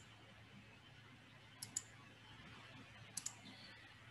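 Two pairs of quick clicks at a computer, about a second and a half apart, over near silence.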